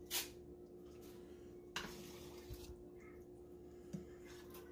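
Spoon stirring thick chili in a stainless steel pot: faint stirring with three soft clinks of the spoon against the pot, over a steady low hum.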